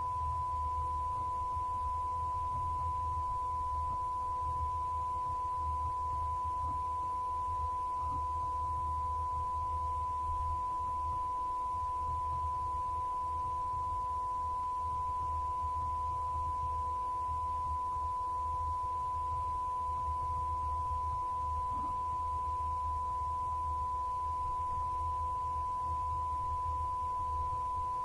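A single steady electronic pure tone, high-pitched and unchanging, held without a break over a faint low hum.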